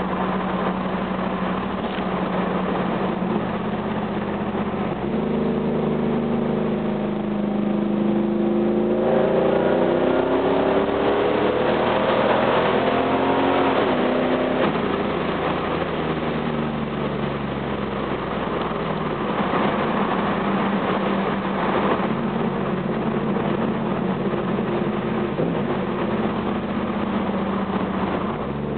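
1987 Camaro IROC's crate Vortec TPI 350 small-block V8 running through headers, a 3-inch single exhaust and a Flowmaster 80 series muffler, on the move. The engine note climbs in pitch under acceleration from about five seconds in to about fourteen, then drops back and holds steady.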